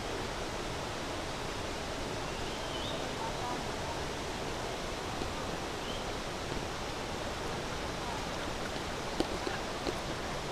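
Steady rush of a waterfall, an even noise that does not change. A faint short chirp sounds a few seconds in, and a few light clicks come near the end.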